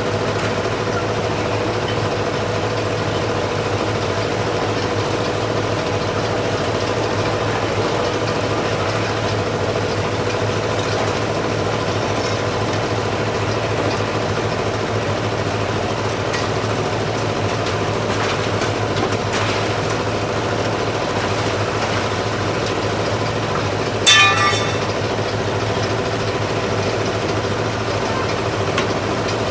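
Harbor ambience: a steady engine and machinery drone, with one brief shrill pitched sound, like a toot, about 24 seconds in.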